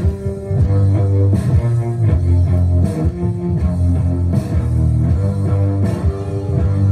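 Rock music playing, with guitar, bass and drums.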